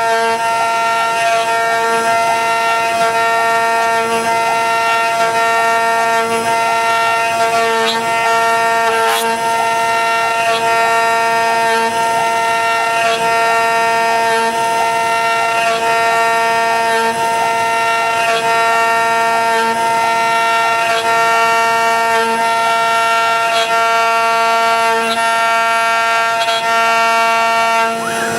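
CNC router spindle running at speed and carving a laminated Karri hardwood neck blank: a steady whine made of several held tones, with irregular small ticks and scrapes as the bit cuts the wood.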